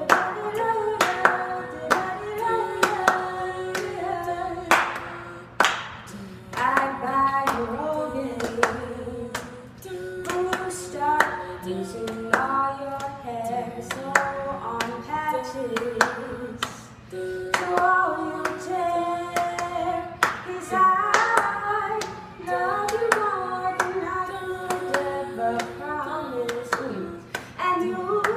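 A young woman singing a pop song, her voice moving through a melody in phrases, with sharp hand claps keeping a steady beat behind it.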